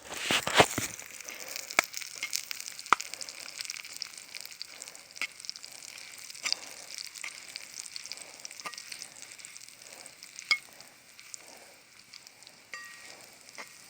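Nuggets frying in oil in a pan, a steady sizzle with scattered sharp pops and crackles, louder in the first second.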